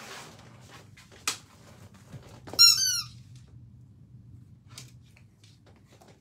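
Squeaky dog toy squeezed in a quick run of high, bending squeaks about halfway through, after a single sharp click.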